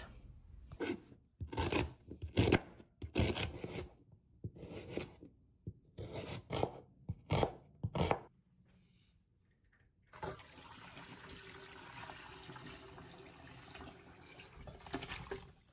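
A kitchen knife chopping vegetables on a cutting board, in irregular strikes. After a short pause, a steady rush of chicken stock poured from a pot as it is drained into the sink.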